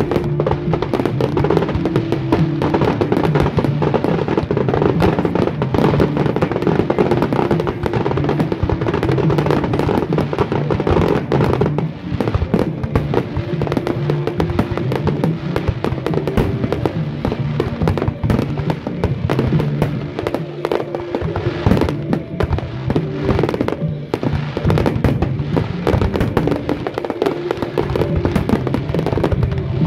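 Fireworks going off in a dense, unbroken barrage of bangs and crackling, with music playing underneath.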